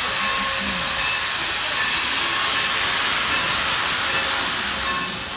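Steam hissing steadily from a steam train as it pulls out.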